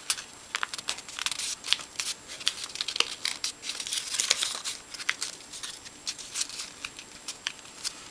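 A sheet of origami paper being folded and creased by hand: irregular crinkling and crackling, busiest about four seconds in.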